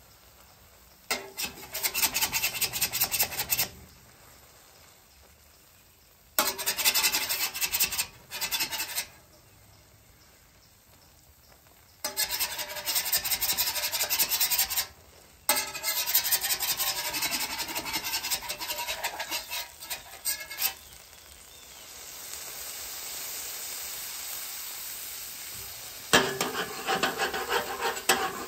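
Metal spatulas scraping across a steel flat-top griddle in about six rasping bursts, working crisped cheese loose from the cooking surface. Between about 22 and 26 seconds there is a softer, steady sizzle.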